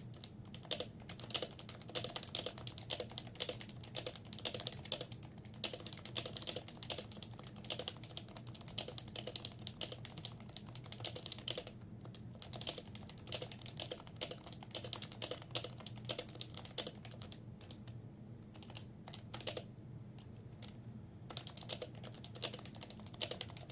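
Typing on an HHKB Professional 2 keyboard with Topre electrostatic-capacitive switches: a fast, irregular run of keystrokes, with a short break about halfway and a longer lull of a few seconds near the end before the typing resumes. A faint low hum sits underneath.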